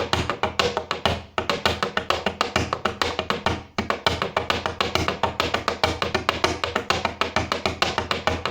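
Two pens drumming fast on a tabletop in a snare-drum-style pattern, with regular deeper thumps under the quick clicks. The playing breaks off briefly twice.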